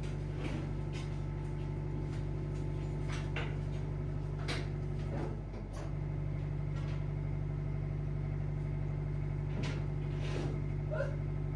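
A steady low hum, like a running machine, dipping briefly about halfway through, with scattered short knocks and clicks over it.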